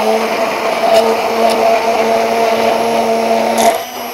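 Electric immersion blender running in a tall plastic beaker, blending basil leaves into a sour-cream mixture: a steady motor hum that drops in level near the end.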